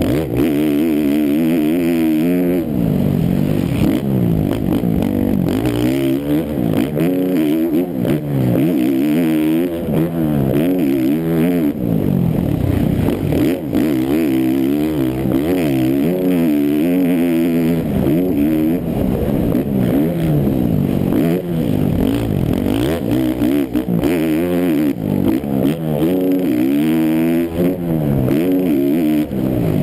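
Suzuki RM-Z450 four-stroke single-cylinder motocross engine at racing pace, heard from the rider's helmet, its revs climbing and dropping over and over as it accelerates out of turns, shifts and backs off into corners.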